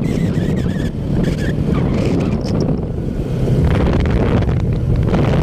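Wind rushing over the microphone of a camera riding on a moving ATV, with the ATV's engine running underneath as it drives across sand.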